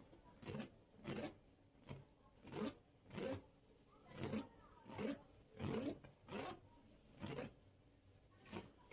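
A flame making a series of short whooshing puffs, about one a second and slightly irregular.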